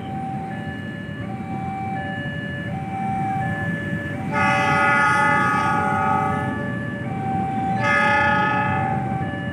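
An approaching train's locomotive horn sounds twice, a long blast about four seconds in and a shorter one near the end. Under it a level-crossing warning signal chimes in a steady repeating pattern, over a low rumble.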